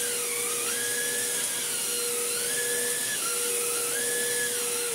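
Cordless stick vacuum cleaner running on carpet: a steady motor whine with a higher tone that rises and falls about every second and a half as the floor head is pushed back and forth. Its filter has been washed, so it pulls plenty of air. The motor starts winding down at the very end.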